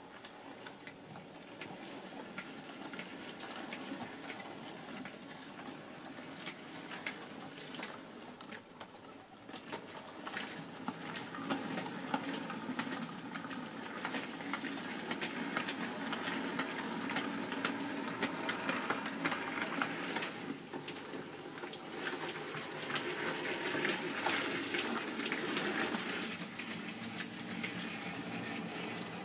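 Model steam locomotive with a rake of goods vans running along the layout track: a steady running noise full of quick irregular clicks from wheels over the rail joints, getting louder from about ten seconds in.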